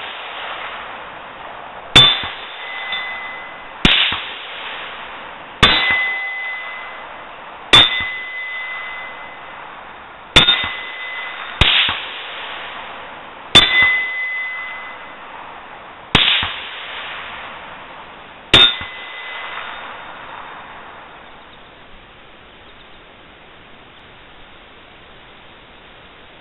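AR500 steel 8-inch plate target struck by .223 rifle bullets, nine hits roughly two seconds apart. Each is a sharp metallic clang followed by a ringing tone that dies away. The hits stop about two-thirds of the way through.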